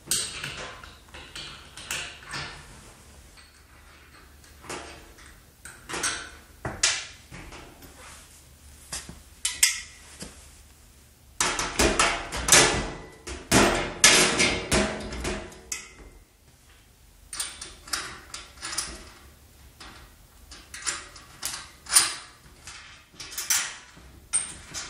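Clinks, knocks and rattles of a steel wheelbarrow tray and its handle rail and bolts being handled and fitted together, with a dense flurry of knocking about halfway through.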